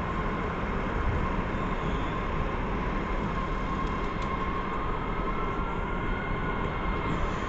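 MBTA train passing at close range: a steady rumble of wheels on track, with a thin steady whine running through it.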